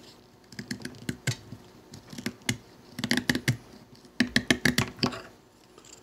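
Gerber Paraframe pocket knife's clip-point blade shaving wood off a pencil to sharpen it: a series of short, sharp scraping cuts coming in small clusters with brief pauses between.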